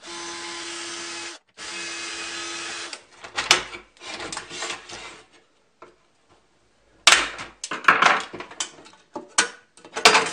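Cordless drill running at a steady speed twice, about a second and a half each time, drilling out the spinning rivets that hold a plastic drill-bit holder to a metal box. Then come clicks and scrapes as a tool pries at the holder, and from about seven seconds in louder rattling knocks of the plastic holder against the metal box.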